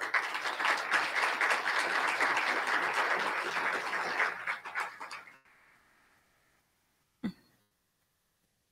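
Audience applauding for about five seconds, then dying away, followed by a single short sound near the end.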